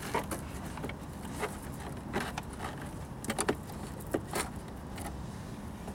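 Battery packs being fitted by hand into the plastic hull compartment of a Traxxas Spartan RC speed boat: scattered clicks, knocks and rustling, with a few sharper clicks, over a steady low background rumble.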